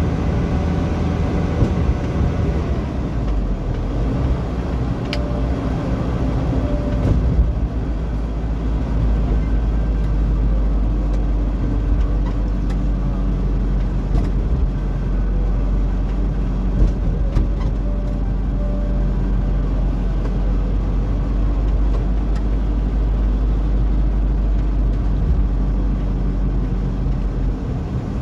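Engine and road noise of a moving vehicle heard from inside its cabin: a steady low drone, with the engine's hum shifting in pitch now and then.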